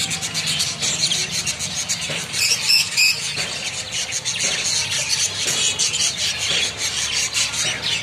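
A flock of caged zebra finches calling all at once: a dense, steady chorus of short high chirps and beeps, with a few louder calls about two and a half to three seconds in.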